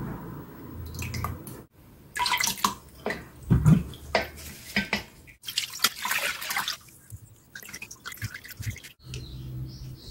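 Red-pepper-seasoned water-kimchi brine being poured through a fine mesh strainer into a stainless steel bowl, splashing and dripping. The sound comes in several short stretches that cut off abruptly.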